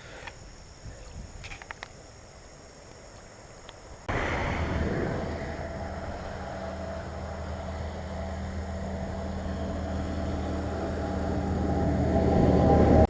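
Road traffic from the highway beside the creek: a vehicle's engine hum and tyre noise starts suddenly about four seconds in, then grows steadily louder before cutting off abruptly.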